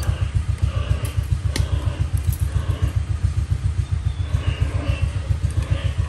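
A steady low pulsing hum, like a motor running close by, under a few light metallic clicks and rattles from pliers crimping and handling galvanized wire mesh.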